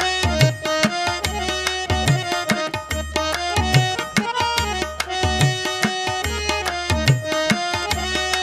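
Background music: a steady hand-drum beat with a melody over it.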